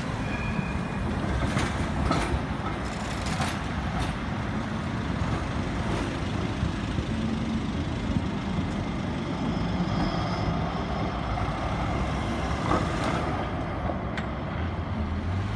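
Steady street traffic noise from a heavy vehicle running, with a few short knocks.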